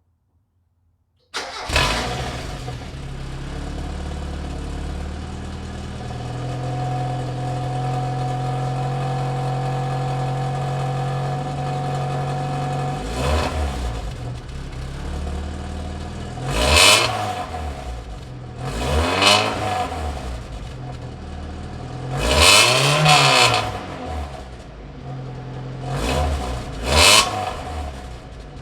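A Mazda Miata's four-cylinder engine starting about a second in through a new Bosal stock-replacement exhaust, then idling steadily before about six quick throttle blips in the second half. The exhaust note is a little raspy.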